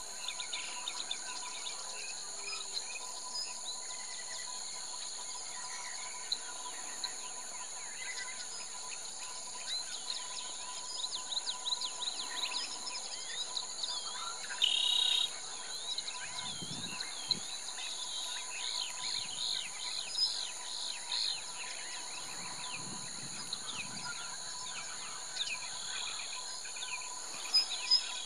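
Wild bush ambience: a steady high-pitched insect drone with many short bird chirps and calls over it, busiest in the middle, and one louder call about fifteen seconds in.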